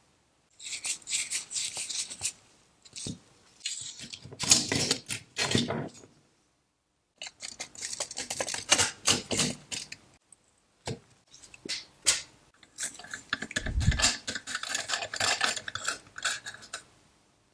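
Small metal parts clinking and rattling as they are handled, in irregular bursts of clicks with short silent gaps between them.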